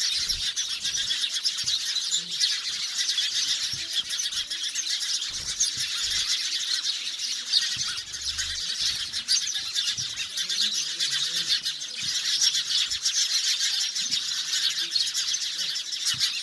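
Dense chorus of birds chirping continuously, many high calls overlapping without a break.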